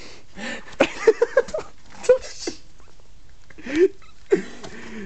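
A man grunting and straining in short vocal bursts, with two rising groans near the end, as he forces his body and pack through a tight rock crevice. Some sharp knocks and rustling go with it.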